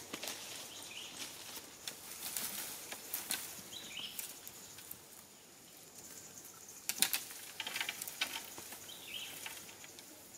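Dry forest leaf litter crackling and rustling as macaques shift and climb about on it, with sharper crackles about seven seconds in. A bird repeats a short high call every couple of seconds in the background.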